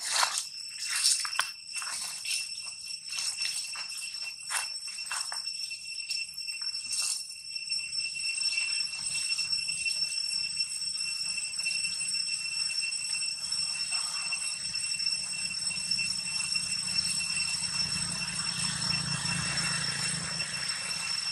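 Insects droning steadily at one high, unchanging pitch. Over the first seven seconds come quick, sharp crunching clicks from a long-tailed macaque chewing its food.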